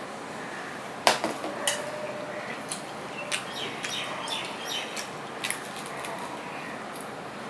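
Fingers picking apart a fried fish on a stainless-steel plate. There is a sharp click against the plate about a second in, with a brief ring, then soft scattered clicks and ticks of the food being pulled from the bones.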